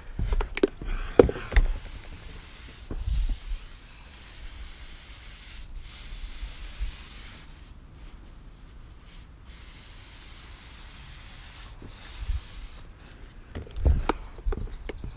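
3-inch paintbrush stroking paint onto wooden deck boards: bristles rubbing on the wood with a soft swishing, and a few knocks near the start and again near the end.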